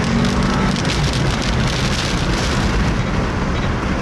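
Strong storm wind and rain close to a tornado, a steady loud rushing noise over the microphone.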